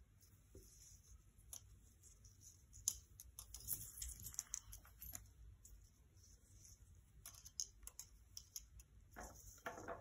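Faint scattered clicks and rustles of hands wrapping jute twine around a thin wooden dowel on a paper-covered table, with a sharper tap about three seconds in and a short rustle near the end.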